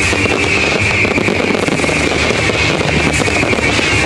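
A fireworks display firing continuously: dense crackling and popping from many shells, with a steady hiss from the ground fountains.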